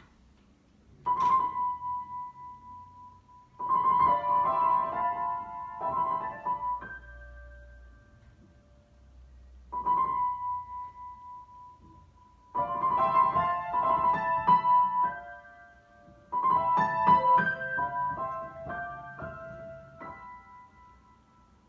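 Solo piano improvisation in separate phrases: a single high note struck and left to ring, then a busy passage of chords and runs, the same pattern coming round again with short pauses between phrases.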